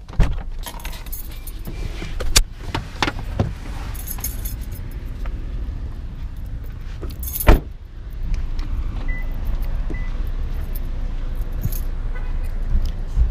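Car keys jangling at the ignition over the steady low rumble of a car, with several sharp clicks and knocks; the loudest knock comes about seven and a half seconds in.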